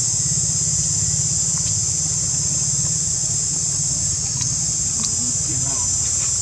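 A steady, unbroken high-pitched chorus of insects, with a steady low hum underneath.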